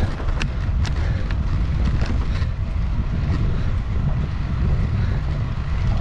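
Wind buffeting the microphone on a moving bicycle, a steady low rumble, with a few sharp clicks in the first couple of seconds.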